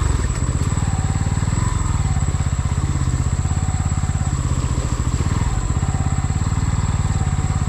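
A vehicle engine running steadily close to the microphone, with a rapid, even pulse of firing strokes.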